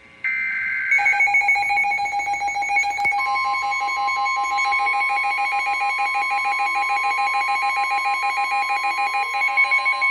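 Emergency alert broadcast tones: a short screech of coded data header, then a rapid pulsing electronic alarm beep. About three seconds in, a steady single-pitch warning tone joins it and holds.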